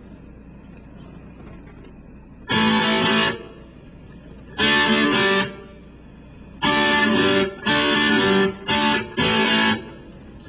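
Music: distorted electric guitar playing loud held chord stabs, the first about two and a half seconds in, then several more in quick succession with short gaps between, over a quieter background.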